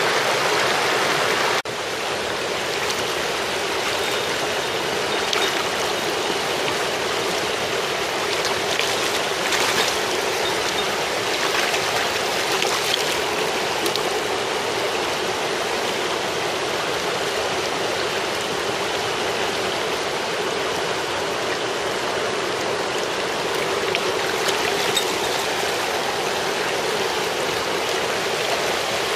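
Shallow, rocky mountain stream running over stones: a steady, unbroken rush of water. About two seconds in the sound steps down slightly in level and then holds steady.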